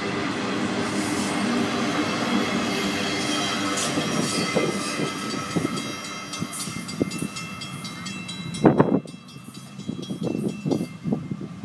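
Florida East Coast Railway freight train's last trailer-on-flatcar cars rolling past and away, a steady wheel-on-rail rumble with high-pitched ringing wheel tones that fades after about six seconds. A brief loud noise comes near the end.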